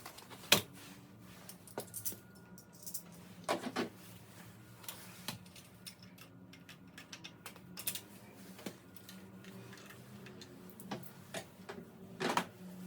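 Scattered metallic clicks, clinks and knocks, about ten at irregular spacing, as tools and bolts are handled during an engine teardown, over a faint steady low hum.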